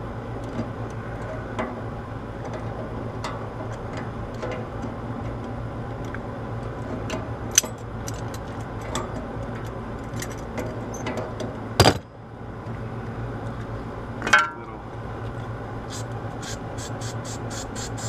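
Small metal clicks and clinks of a hex key working the set screw on an AC condenser fan blade's hub, with a few sharper knocks, over a steady low hum. Near the end, a quick even rattle of about four to five clicks a second, like an aerosol spray can being shaken.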